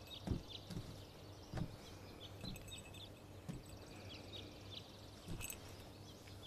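Faint birds chirping in short, scattered calls, over a low steady hum, with a few soft thumps.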